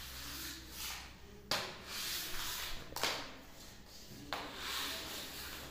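A floor mop pushed across a tiled floor in long strokes, a new stroke starting about every second and a half.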